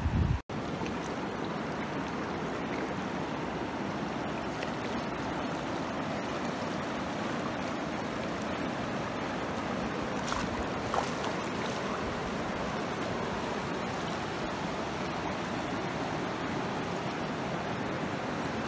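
Steady rushing of a fast-flowing mountain river running over rocks. It cuts out for an instant just after the start, then holds even.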